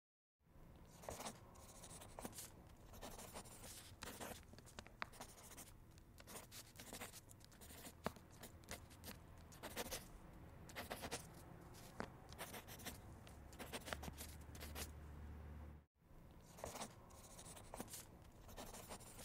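Faint pen-on-paper drawing sound: quick, irregular scratching strokes, with a brief break about sixteen seconds in.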